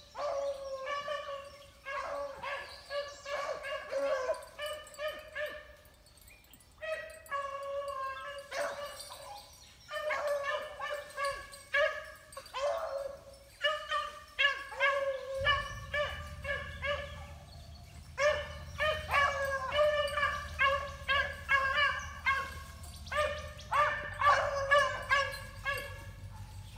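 Rabbit-hunting beagles baying, a rapid string of short, repeated high yelps as the hounds run a rabbit's trail. The calls come in bouts with brief pauses. A low steady rumble comes in about halfway through.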